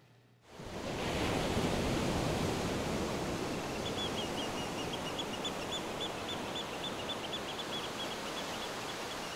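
Ocean surf: a steady rush of waves fading in about half a second in, with a bird chirping in quick repeated notes, about four a second, through the second half.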